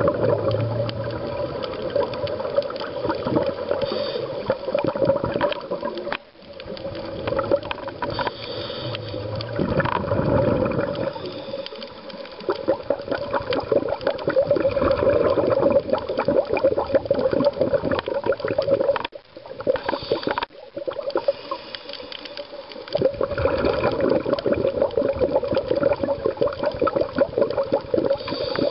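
Underwater bubbling and gurgling, typical of a scuba diver's exhaled regulator bubbles heard through an underwater camera, coming in long stretches with short quiet breaks about six seconds in and around two-thirds of the way through.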